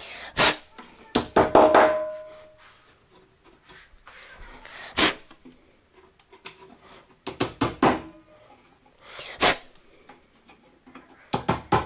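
Wooden furniture parts and hand tools being knocked and set down: a handful of sharp knocks and clatters, some with a short ring, in small groups with quiet in between.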